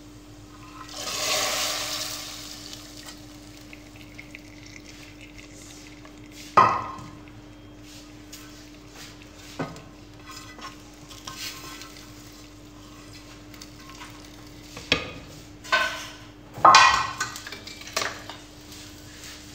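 Hot ghee tadka poured into a clay pot of dal, hitting the liquid with a brief hissing sizzle that swells and fades over about two seconds. Then scattered knocks and clinks of a pan and spoon against the pot: one loud knock about six seconds in and a cluster near the end. A faint steady hum runs underneath.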